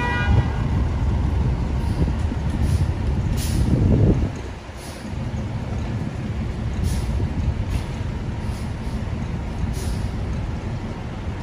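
FDNY fire engine's diesel engine rumbling as the pumper pulls away, louder for the first four seconds and then easing off, with several short hisses from its air brakes.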